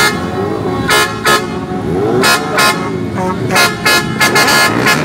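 Noisy street celebration: repeated short horn toots, some coming in quick runs, over shouting and cheering voices and the running of motorbikes and a truck.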